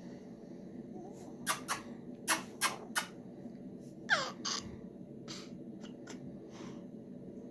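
Lip-smacking kissing sounds, a quick run of about five sharp smacks starting a second and a half in and a few softer ones later. About four seconds in there is a short falling squeal of a voice.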